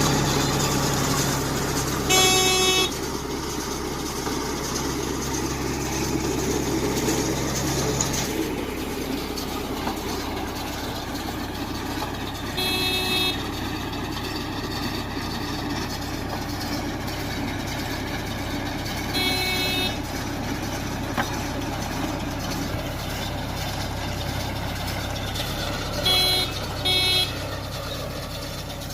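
Tractor engine running steadily while working a Bull Agro baler. A vehicle horn honks briefly five times: about two seconds in, around the middle twice, and two quick honks near the end.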